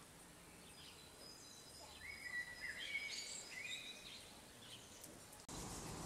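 Songbird calling outdoors: faint high thin notes, then a quick series of short whistled notes between about two and four seconds in, over a soft outdoor hiss. About five and a half seconds in, the background cuts suddenly to a louder, rougher hiss.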